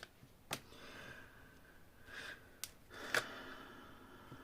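Tarot cards being handled: a few sharp clicks and snaps, about half a second in, then twice near the three-second mark, with soft rustling between.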